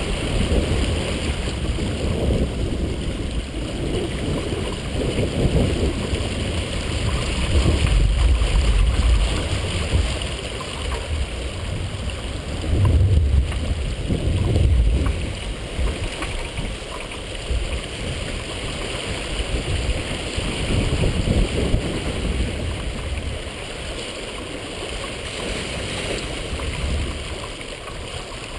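Water rushing and splashing along the hull of a heeled sailboat under way, with wind buffeting the microphone. The wind rumble swells in gusts, strongest about a third of the way through and again around halfway.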